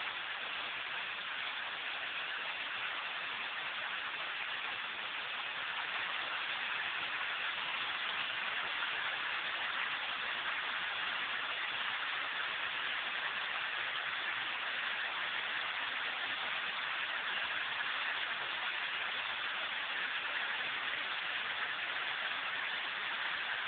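Steady rush of a waterfall: an even hiss of falling water with no breaks, a little louder from about six seconds in.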